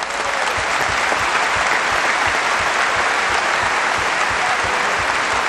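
Large seated audience applauding, coming up at once and holding steady.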